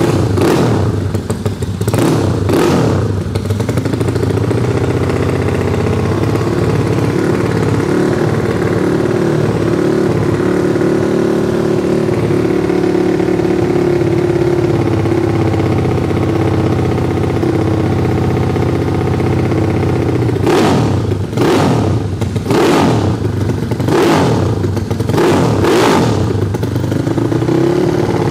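A Yamaha Fino scooter's 200 cc competition engine with a CLD FFA race exhaust, idling with a steady low beat. It is given short, sharp throttle blips two or three times near the start and about six times in quick succession over the last eight seconds.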